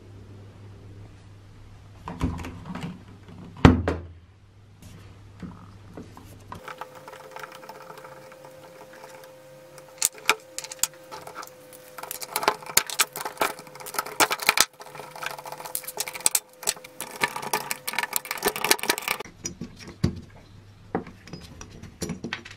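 Metal parts of an old electric drill's bottle-capping head clicking and clinking as they are handled and taken apart, with many sharp clicks in the middle part. A faint steady hum runs under the clicking.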